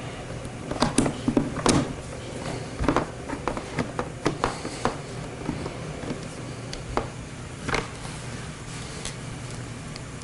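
Irregular light clicks and knocks, a dozen or so spread unevenly and busiest in the first half, over a steady low hum.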